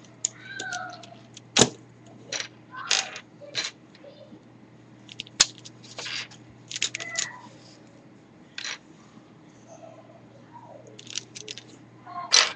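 V-Cube 5 puzzle cube's plastic pieces clicking and scraping as they are fitted together and pushed into place by hand, in irregular sharp clicks with short squeaky rubs between them.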